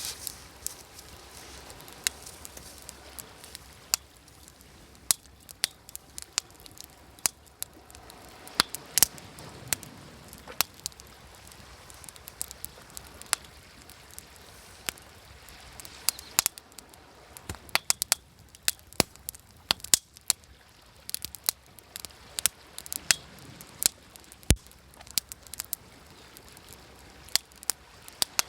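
Wood campfire crackling, with sharp pops at irregular moments over a low hiss. A soft wash of waves swells up now and then behind it.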